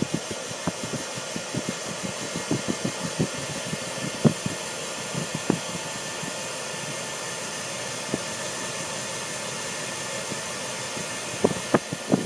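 Hand-held hair dryer blowing steadily, with irregular sharp knocks and taps over the first five seconds or so and a few more near the end.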